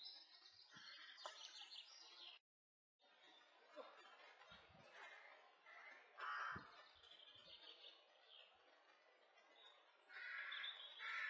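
Faint birdsong, with repeated short chirps and trills, and a few soft low knocks.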